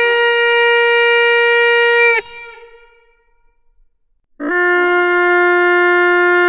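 Tuohitorvi, a Finnish birch-bark horn, blown in two long steady blasts, the second lower in pitch than the first. Each blast breaks off sharply and leaves a brief echo.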